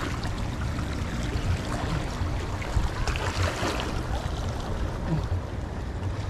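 Outdoor waterside ambience: a steady low rumble with an even hiss over it and a few faint crackles around the middle.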